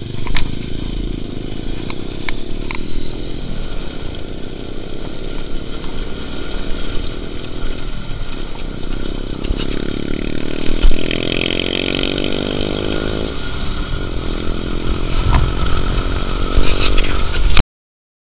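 Motorcycle engine running while riding a gravel trail, its pitch climbing steadily under acceleration from about nine seconds in and dropping suddenly around thirteen seconds as it shifts, with scattered knocks and rattles. The sound cuts off abruptly near the end.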